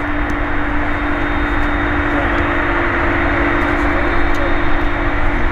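Jet engines of an Airbus Beluga A300-600ST running steadily: an even rushing noise with a constant low hum underneath.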